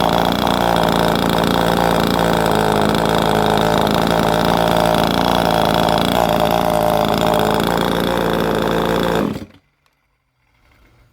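Chainsaw engine running steadily at an even speed, then stopping abruptly about nine seconds in.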